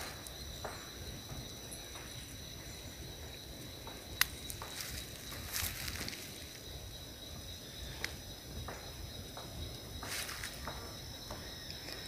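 Insects chirring steadily at a high, constant pitch, with a few brief rustles and one sharp click about four seconds in.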